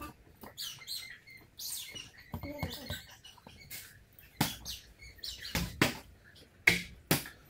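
A few short high squeaks, then a series of sharp clicks and knocks, the loudest near the end.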